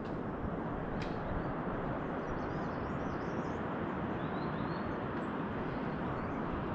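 Steady outdoor rushing noise, with faint high bird chirps in the middle and a single light click about a second in.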